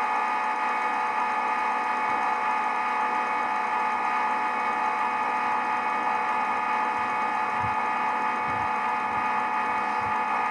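Simulated CNC milling machine running in the SwanSoft simulator software: a steady mechanical spindle-and-cutting hum made of several held tones as the virtual tool mills the profile, cutting off suddenly right at the end.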